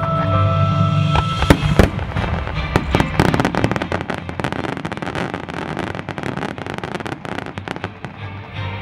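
Aerial fireworks: a few sharp bursts about a second and a half in, then a long dense crackle of many rapid pops that thins toward the end. Music plays at the start, under the bursts.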